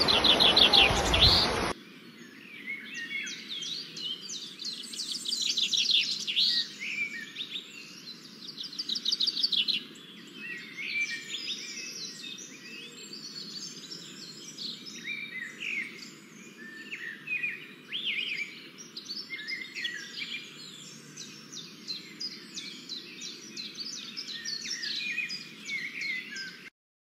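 Rushing river water for about the first two seconds, cut off suddenly. Then a dense chorus of many small birds chirping and trilling over one another, which stops abruptly near the end.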